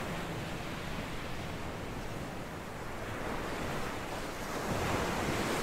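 Ocean waves washing in: a steady rush of surf that swells a little near the end.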